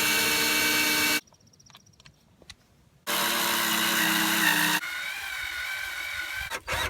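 Small electric drill driving screws into wood: two runs of the motor whine, each about a second and a half, the second easing into a quieter, lighter spin for a further second and a half, with a few faint clicks between the runs.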